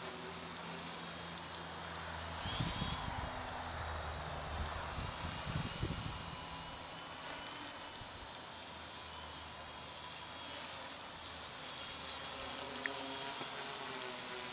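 3D Robotics quadcopter's electric motors and propellers buzzing steadily in flight.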